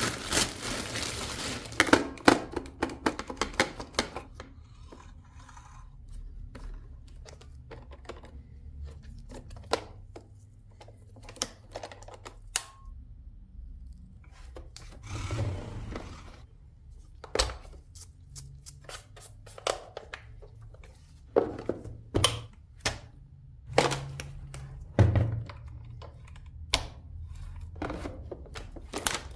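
Irregular clicks and thunks of hard plastic parts being handled and fitted together, over a faint low hum, before the robot vacuum is switched on.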